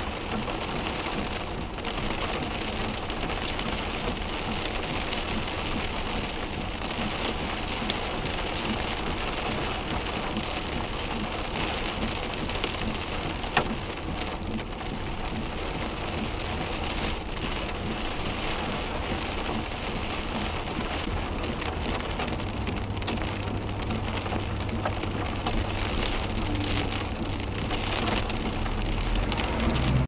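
Heavy rain pouring steadily onto a wet road, with one sharp knock about halfway through and a low steady hum in the last third.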